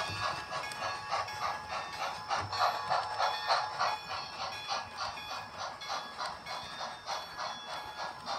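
HO scale model train running on its track, with a steady rhythmic clatter of about four beats a second.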